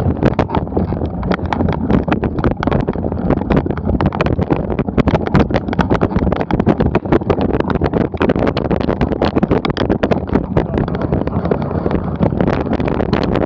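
Mountain bike riding over a bumpy forest trail: wind rumbling on the microphone over a constant rattle of clicks and knocks from the bike jolting on the rough ground. The wind noise grows louder near the end.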